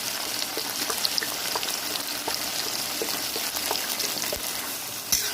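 Chicken and onions sizzling in oil in a kadai as tomato sauce is poured in: a steady hiss with scattered small ticks.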